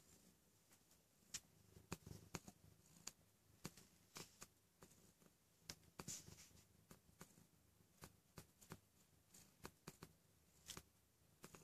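Near silence with faint, irregular soft clicks and rustles, a few each second.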